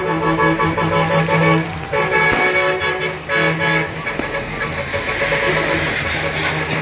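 Truck air horns blowing a held chord in three long blasts, followed by the noise of passing trucks running.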